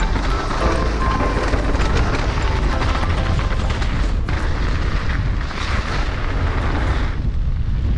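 Steady wind rumble on the microphone with the clatter of a mountain bike riding over rough trail, many small knocks throughout. Background music fades out in the first second or so.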